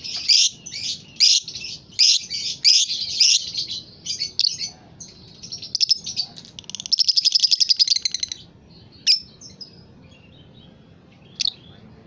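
A caged lovebird, by its plumage a Fischer's lovebird, chattering: a quick run of shrill chirps, a fast buzzing trill about seven seconds in, then a couple of single chirps.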